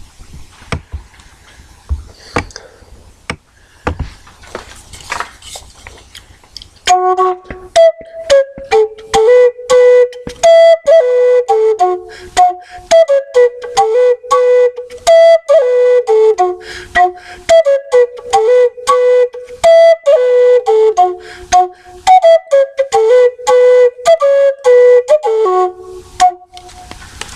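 Intro music: a few sparse percussive hits, then from about seven seconds in a repeating melody of short stepping notes, woodwind-like, over a steady beat.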